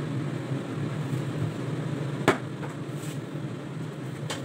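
A plate of raw chicken set down on the kitchen counter with a sharp knock about halfway through, followed by a lighter knock near the end, over a steady low hum.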